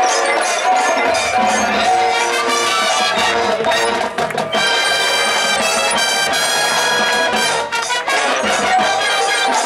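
High school marching band playing its field show: brass over percussion, with sharp drum strokes early on giving way about halfway through to a long held brass chord of some three seconds before the music moves on.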